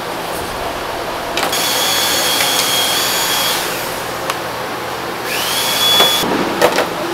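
A small high-speed electric motor runs twice with a high whine. The second time it spins up with a rising pitch, then cuts off, and a few light metallic clinks follow near the end.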